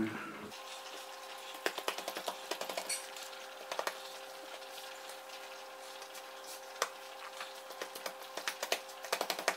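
Hands kneading, pressing and folding dough on a floured wooden butcher block: scattered soft taps and knocks that come thicker near the end, over a faint steady hum.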